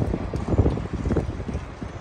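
Wind buffeting the microphone: an irregular, gusty low rumble.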